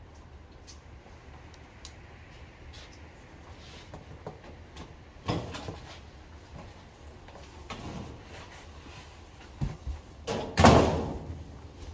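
A metal security screen door being opened with a clunk and rattle about five seconds in. Then come steps and knocks, and a loud thud near the end as a large cardboard box is carried through the doorway.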